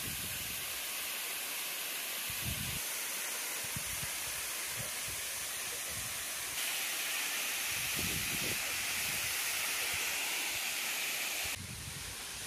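Steady rushing hiss of a tall, narrow waterfall plunging into a rock pool. It grows a little louder about halfway through and drops back near the end.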